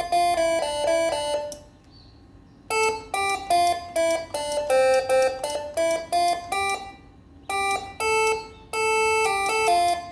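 Telolet horn module playing a melody through six horn trumpets: a quick run of stepped horn notes in three phrases with short breaks, cutting off abruptly at the end.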